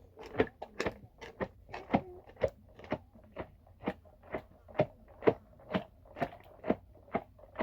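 Sharp, evenly paced knocks or chopping strokes, about two a second.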